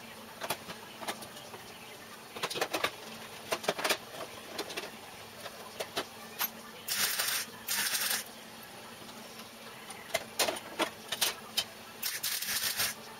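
MIG welder tack- and stitch-welding repair steel on a car's A-post: a string of brief crackling zaps, with two longer sizzling runs about seven seconds in and a longer one near the end.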